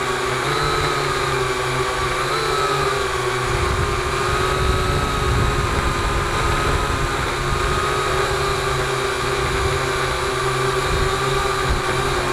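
Small multirotor drone's electric motors and propellers whining steadily, the pitch wavering slightly as it descends to land on grass.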